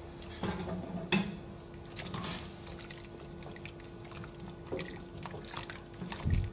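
Wooden spatula stirring chicken feet in a pot of water, with sloshing and scattered light knocks against the aluminium pot, and a low thump near the end.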